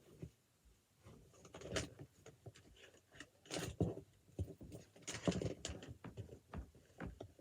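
Fidget toys being handled on bedding: irregular rustling, soft knocks and clicks, with louder rustles about two, three and a half, and five seconds in.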